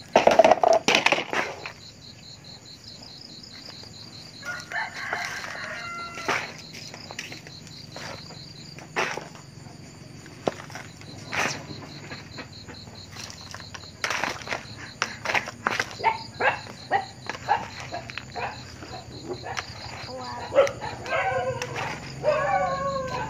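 Loose soil scraped up with a small plastic scoop and poured into a plastic toy dump truck: a run of short scrapes and rattles, loudest just at the start. A rooster crows in the background, once at about five seconds and again near the end.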